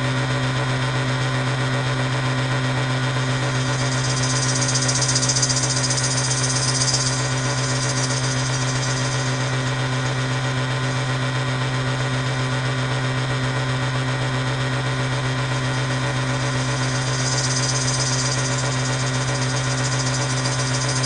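Steady low droning hum with a buzzing, machine-like quality, and a higher hiss that swells up twice and fades.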